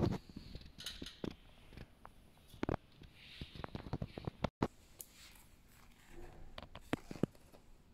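Scattered light clicks and taps at irregular intervals, handling noise from a hand touching a children's bicycle's rear tyre and frame, with a brief dropout about halfway through.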